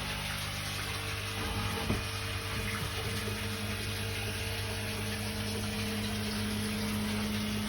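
Water running steadily, under a steady mechanical hum, with a single brief knock about two seconds in.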